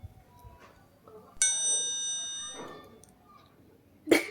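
A bell-like chime rings about a second and a half in and fades over about a second. Near the end comes a short, sharp sneeze, the loudest sound here.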